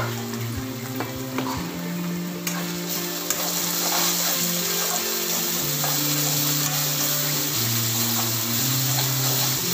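Sliced onions sizzling in hot oil in a wok as they are stirred and scraped with a steel spoon, frying toward golden brown; the sizzle grows louder about three seconds in. Background music with held notes plays underneath.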